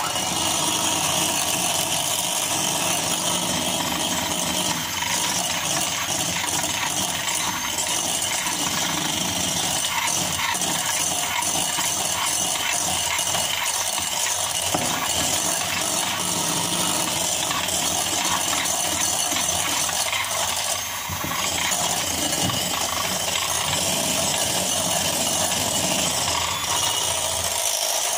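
Electric hand mixer switching on and running steadily, its wire beaters whisking egg and oil into mayonnaise against the sides of a ceramic bowl. The noise dips briefly about 21 seconds in.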